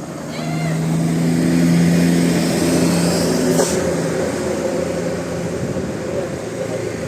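A bus drives past, getting louder to a peak about two seconds in and then fading. A low steady tone is held for about three seconds as it passes, and there is a brief hiss about three and a half seconds in.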